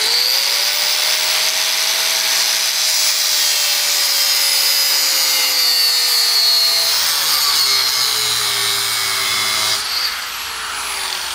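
DeWalt angle grinder cutting a fish-mouth into the end of a steel tube held in a vise: a steady motor whine over a loud grinding hiss. Near the end it comes off the metal and the whine falls away.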